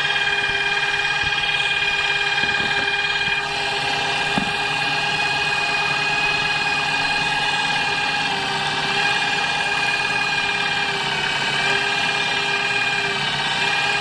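DIY 18 V electric outboard, an HRS 775 brushed cordless-drill motor and gearbox turning an APC 8x4 model aircraft propeller, whining steadily. Its pitch sags a few times, most clearly near the end, as one solar panel is shaded by hand: the motor RPM drops with the lost panel power.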